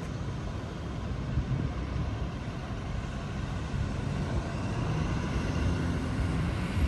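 Steady low rumble of engine noise that grows slightly louder, with a faint high whine joining after about four seconds.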